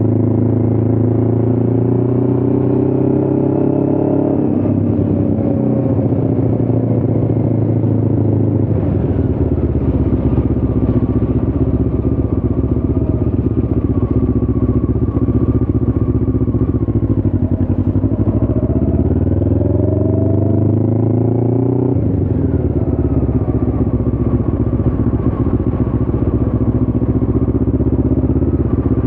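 Motorcycle engine running under way. Its pitch dips and rises several times, and about two-thirds of the way through it steps to a new steady note.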